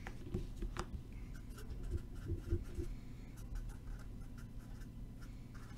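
Faint scratching and a few light clicks from hands working at a desk, over a low steady hum.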